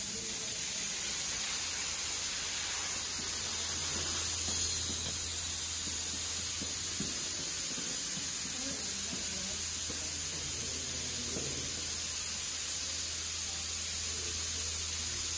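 A steady, high-pitched hiss, like a spray or jet of mist, with a faint low hum beneath it.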